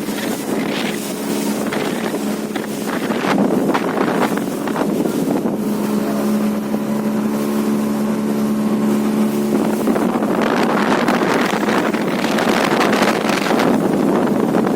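Motorboat engine running at a steady pitch, under rushing noise from wind buffeting the microphone.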